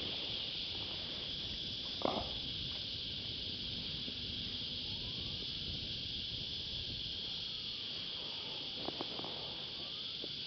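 Cicadas singing steadily in the shoreline trees, an even, high-pitched drone. A single knock about two seconds in and a few light clicks near the end.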